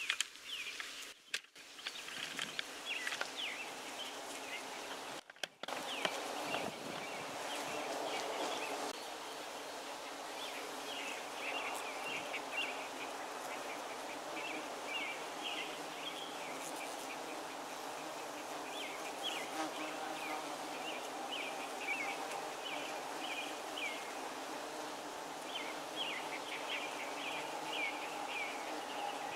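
A swarm of bees foraging in a flowering holly tree, buzzing in a steady hum. Short, high chirps come and go over it. The sound drops out briefly twice near the start.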